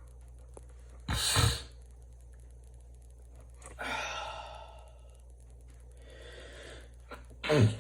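Forceful breath bursts from a man's nose and mouth while stuffed up: one loud, sharp burst of air about a second in, a long breathy exhale around the middle, and a second loud burst with a falling voice near the end.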